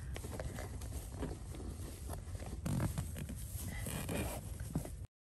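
Rustling and handling noise of hands feeding an LED light strip's wire under a car seat, with a few light knocks; it cuts off abruptly near the end.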